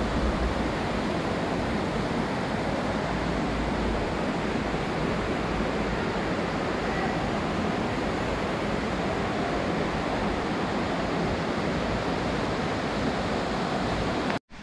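Steady rushing of falling water in a cave, an even roar without pauses that cuts off suddenly near the end.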